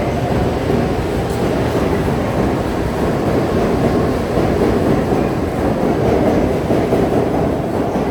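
Train running on the rails: a steady rumble and rail noise without pause.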